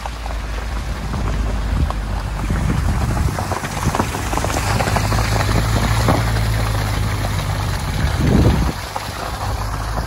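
SUV driving along a snowy dirt track: tyres crackling and splashing through slush over a low, steady engine hum, with a louder low rumble about eight seconds in.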